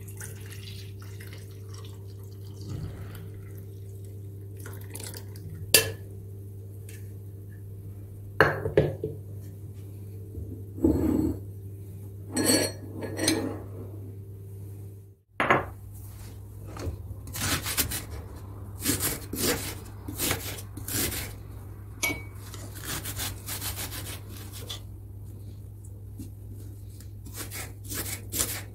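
Kitchen clatter: dishes and cutlery clinking and scraping, a few knocks in the first half and a quick run of short clinks and scrapes in the second, over a steady low electric hum. The sound drops out for a moment just past halfway.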